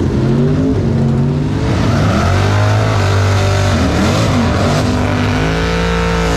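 Drag cars' engines revving hard at the starting line. The pitch climbs and drops several times and holds high for long stretches, with tire-spinning hiss as one car does a burnout.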